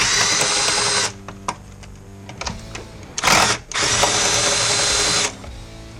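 Cordless drill with a 10mm socket spinning out the two bolts that hold the engine's intake resonator. Its motor whines steadily for about a second. About three seconds in there is a brief louder rasp, then a second run of about a second and a half.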